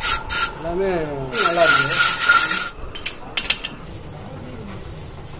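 Rusty TVS 50 wheel hub spinning in a lathe chuck while a hand-held steel bar scrapes it: a harsh rasping scrape with a steady ringing whine. It comes as a short burst at the start, then a longer one of about a second and a half. It stops about three seconds in, leaving a few light clicks.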